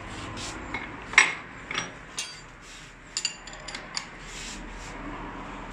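Spanner and steel parts clinking and scraping during work on a diesel fuel injector: a string of short, sharp metallic clicks, the loudest about a second in and several close together near the middle.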